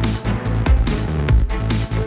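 Electronic dance music with heavy bass and a steady driving beat.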